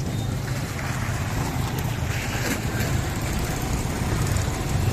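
A motor vehicle's engine running steadily, a low hum.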